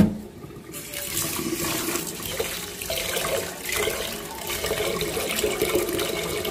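A short knock right at the start, then tap water starts running about a second in, pouring into a stainless steel pot of jasmine rice in a steel sink while a hand swirls the grains to rinse them.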